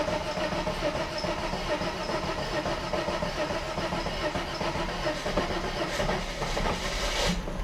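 1991 Mercedes 300CE's straight-six engine running steadily on its own just after being started, its freshly cleaned idle control valve holding the idle without throttle.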